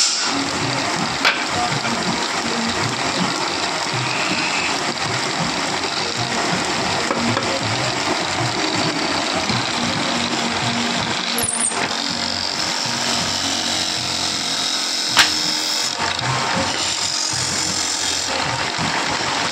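Belt-driven wood lathe running while a hand chisel cuts a spinning wooden disc, a dense steady scraping hiss of wood being turned, with two sharp knocks. Background music runs under it.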